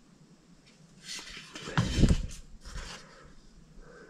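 Rustling of hands handling carved wooden pieces, with a dull knock about two seconds in as a hand-carved wooden beer mug is set down on a wooden floor.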